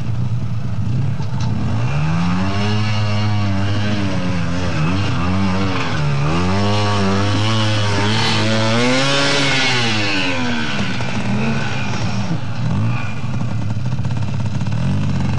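Trials motorcycle engine revving up and down again and again as the rider blips the throttle under load on a steep muddy climb. It is loudest around the middle and settles near the end.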